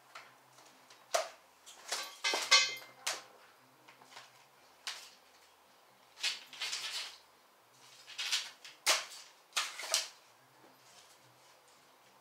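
Scattered clinks and clatters of hand tools and parts being handled while a new battery is fitted to a motorcycle. The busiest clatter comes about two to three seconds in, with further knocks at intervals after it.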